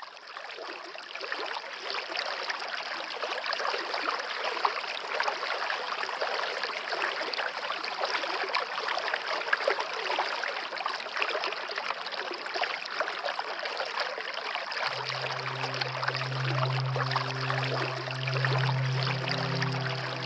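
Water running in a stream, a steady trickling rush with fine splashy detail. Near the end, a low steady musical drone joins underneath.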